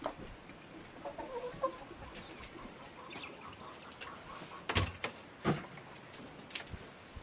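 Hens clucking softly close by, with scattered light clicks and two sharp knocks a little past the middle.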